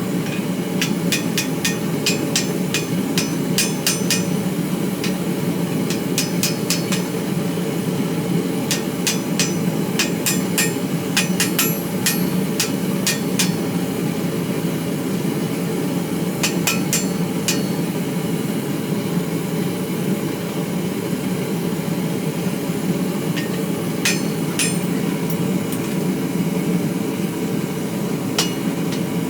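Blacksmith's hammer striking steel on an anvil while forging a barbecue fork. The blows come in several quick runs separated by pauses, each strike with a bright metallic ring, over a steady low rushing noise.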